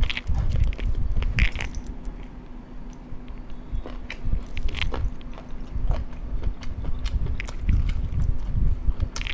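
Biting and chewing a chicken drumstick, tearing the meat from the bone with irregular sharp clicks and crunches, busiest near the start and again near the end.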